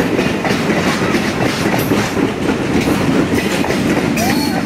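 Train cars rolling past, a steady rumble with wheels clacking over the rail joints, and a brief wheel squeal near the end.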